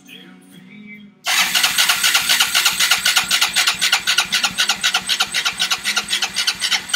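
Honda 300EX's single-cylinder four-stroke engine being turned over on its electric starter after a top-end rebuild, with an even chugging about six or seven times a second that begins about a second in, without catching and running; it later turns out not to be getting enough fuel.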